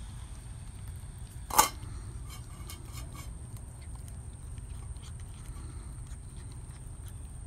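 Two Maltese dogs eating out of a stainless-steel bowl: small scattered clicks and crunches of chewing and food against the metal, with one sharp, much louder click or knock about one and a half seconds in. A steady low rumble lies underneath.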